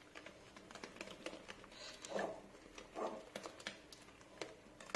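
Spatula stirring whipped cream into a mousse base in a glass bowl: faint soft mixing sounds with scattered light clicks of the spatula against the glass.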